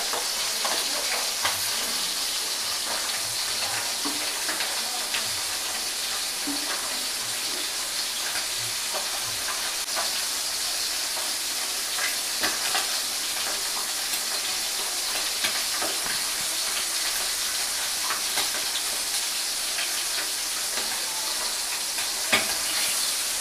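Pieces of gar fish frying in a pan of hot oil: a steady sizzle with scattered pops and crackles.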